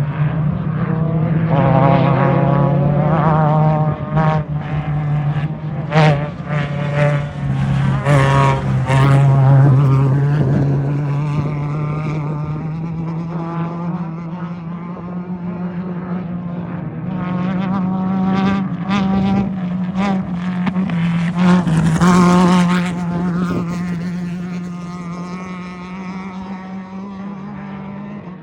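Off-road race vehicle engines running hard as several pass one after another, rising and falling in pitch as they rev, over a steady low engine drone. Sharp loud bursts about six, eight and twenty-two seconds in.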